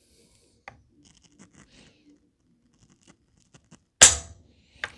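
Faint small clicks of handling while trigger pressure builds. About four seconds in, a loud sharp snap as the SDS Imports BLP M12AB shotgun's trigger breaks and the hammer falls on an empty chamber, then a lighter click just before the end. The trigger is heavy, measured at about 11½ pounds.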